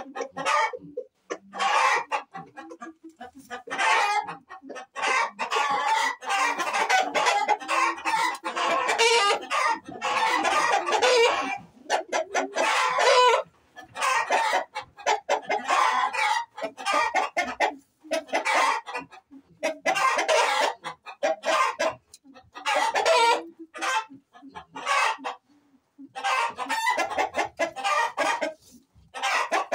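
Chickens clucking and roosters crowing, calls coming in bursts with short silent breaks between them.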